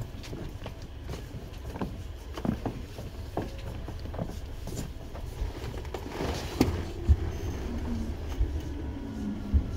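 Seibu 2000 series electric train running, heard from inside the car: a steady low rumble with wheels knocking over rail joints, the loudest thumps about 7 and 9.5 seconds in. Near the end a faint falling whine comes in.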